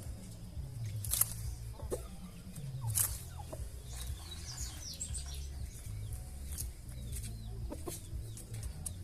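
Chickens clucking in a yard, over a steady low rumble on the microphone, with a few sharp clicks and faint short bird calls.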